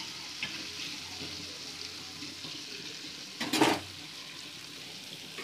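Masala-coated fish steaks sizzling steadily in oil on a black pan, with a light metal spatula click about half a second in and one brief, louder clatter about three and a half seconds in.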